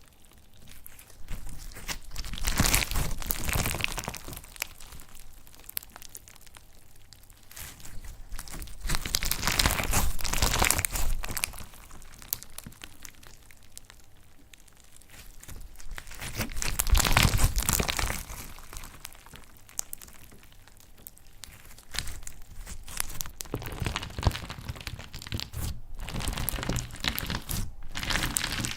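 Slime being squeezed and stretched by hand, a dense run of small crackles and squelches that swells up four times and dies down in between.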